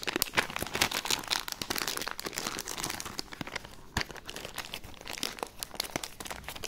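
Clear plastic packaging bag crinkling and rustling as it is handled and pulled open one-handed, with a sharper click about four seconds in.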